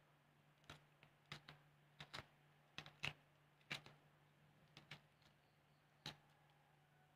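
Faint, sharp clicks, about a dozen at uneven spacing, as a kitchen knife slices a red chili into pieces that drop onto a stone mortar.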